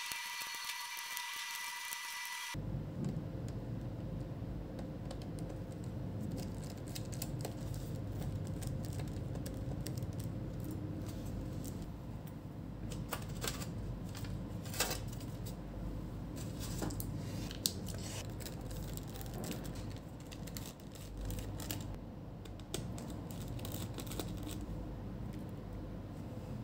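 Small hand tools working on an Asus Zenbook UX303's aluminium bottom case, with the screws being driven out and the panel pried off. Scattered light clicks and scrapes sound over a steady low background noise.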